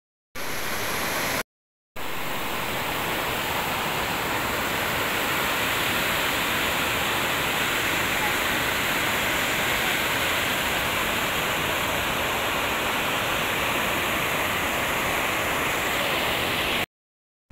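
Water rushing over a river weir: a steady, loud rush of white water, broken by brief silent gaps about a second and a half in and near the end.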